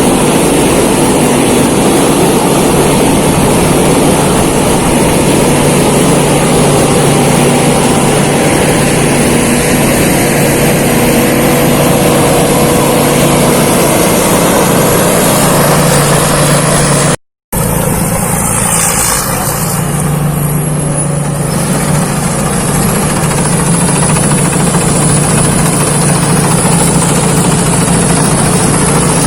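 Thai Seng rice combine harvester running steadily under load while harvesting. The sound cuts out for a moment about 17 seconds in.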